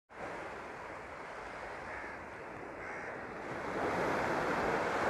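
Small sea waves washing onto a sandy shore, a steady wash that gets louder a little under four seconds in, with some wind on the microphone.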